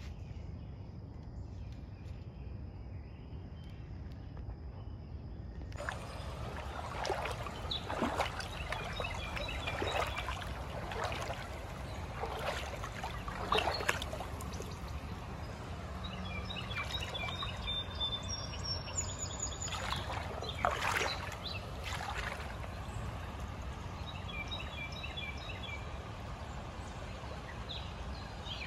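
A small creek's water trickling over rocks, louder and brighter from about six seconds in, with irregular short splashes.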